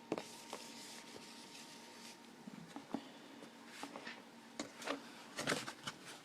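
Faint handling noises: scattered light knocks and clicks with a few short stretches of rubbing, over a faint steady hum.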